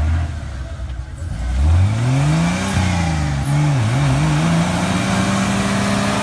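Off-road 4x4's engine revving hard as it churns through deep mud with its wheels spinning. The revs climb about a second and a half in, dip and surge a couple of times, then hold high and steady.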